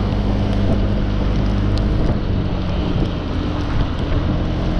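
Riding a Honda PCX scooter through wet traffic: a steady engine hum under wind rushing over the microphone and the hiss of tyres on the wet road.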